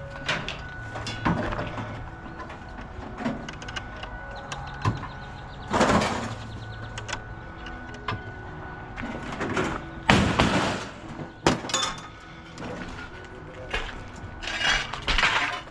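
Scrap being handled and moved about: a string of knocks, bumps and longer scrapes, the loudest about six seconds in and again around ten seconds, over a steady low hum.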